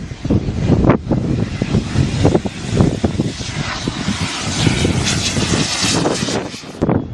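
Radio-controlled model jet's turbine engine at full power through its takeoff roll and climb-out, a rushing hiss that grows stronger, over heavy wind gusts buffeting the microphone. The engine sound cuts off abruptly near the end.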